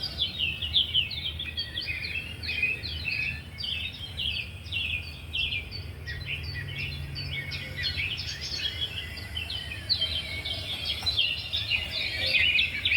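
Many small birds chirping and twittering at once, a dense run of quick overlapping calls, over a low steady hum.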